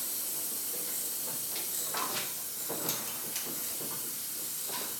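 Steady hiss of compressed air escaping from a leaky air valve, with a few light clicks and knocks over it.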